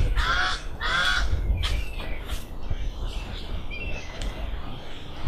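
Crow-like caws, two short harsh calls in quick succession about half a second apart near the start, then quieter.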